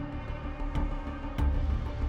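Background music: sustained low tones with a steady percussive beat about twice a second.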